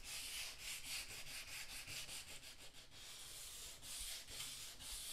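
Wetted 320-grit sandpaper rubbed by hand along the edge of a wooden cabinet's finish: a soft scratchy hiss in quick back-and-forth strokes.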